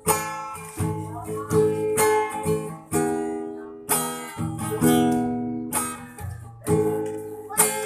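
Acoustic guitar strumming chords, each strum ringing out, in an instrumental passage between sung lines.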